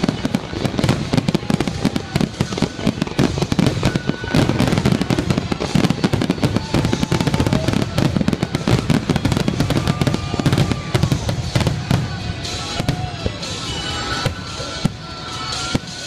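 Fireworks finale: a rapid, continuous barrage of aerial shells cracking and booming over one another, thinning out over the last few seconds as a crowd begins to cheer.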